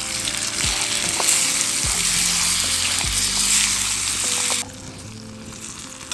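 Stir-fry of vegetables and tofu sizzling in a frying pan over a campfire as it is stirred, the sauce just added. The loud sizzle cuts off abruptly about four and a half seconds in, leaving a much quieter sizzle.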